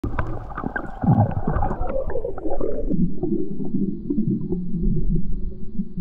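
Underwater sound picked up by a swimmer's camera: muffled sloshing and bubbling water with scattered clicks, turning duller and more muffled about three seconds in.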